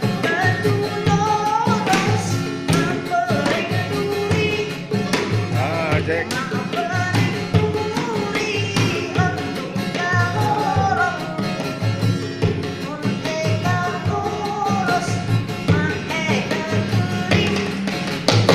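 Street buskers' performance: a singing voice over a steady rhythmic percussion beat.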